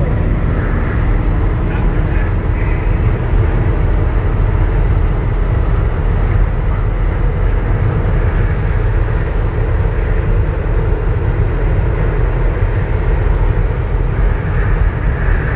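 1967 Chevrolet pickup truck driving at road speed: a steady, deep rumble of engine, drivetrain and tyre noise that holds even throughout.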